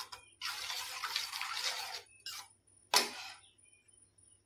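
Spoon stirring wet carrot halwa in a steel pan, with its sugar just melted, a sloshing scrape for about a second and a half. Then a single sharp knock of the spoon against the pan about three seconds in.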